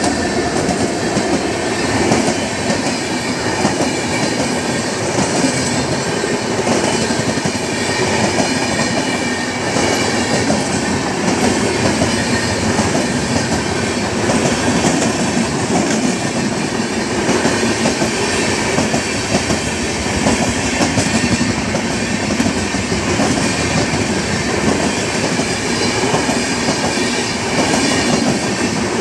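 An Indian Railways WAP-7 electric locomotive and its LHB passenger coaches passing close at speed: loud, steady noise of wheels running on the rails, with a clatter of wheels over rail joints throughout.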